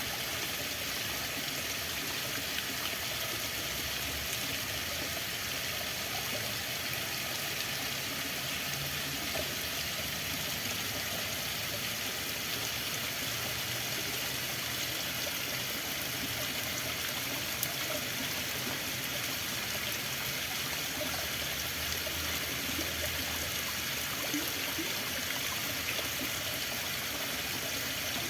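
Running water flowing steadily, a stream or brook with small trickles and splashes.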